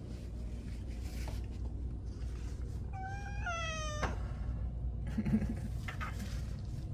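Black-and-white cat meowing once, a single drawn-out call about a second long that steps up in pitch midway and drops off at the end. A steady low hum runs underneath.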